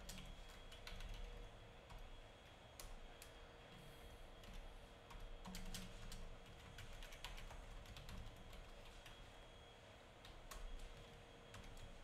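Typing on a computer keyboard: faint, irregular keystrokes over a faint steady hum.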